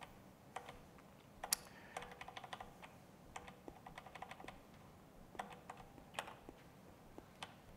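Laptop keyboard typing: faint, light key clicks in quick irregular bursts.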